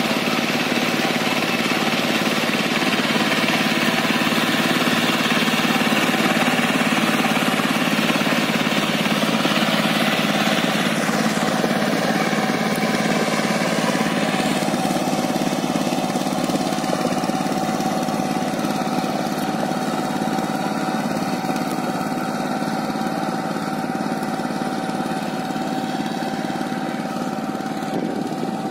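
Two-wheel power tiller's engine running steadily as it drives its rotavator through a flooded, muddy paddy field, growing slightly fainter near the end as the tiller moves away.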